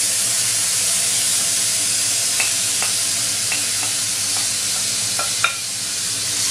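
Mashed aubergine sizzling steadily in hot olive oil in a frying pan, cooking off its excess liquid. A few light clicks from a wooden spoon scraping it out of a bowl come through in the middle.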